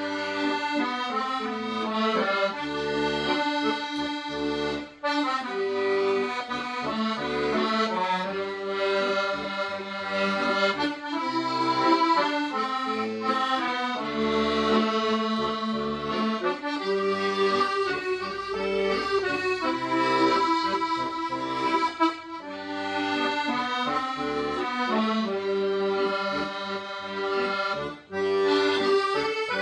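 Accordion playing a slow melody in sustained, reedy notes over a bass line, with short breaks between phrases.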